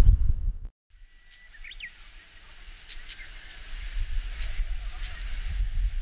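Siberian stonechat calling: short, thin whistled notes about once a second, with sharp clicking notes between them, over a low background rumble. The sound drops out briefly near the start before the calls begin.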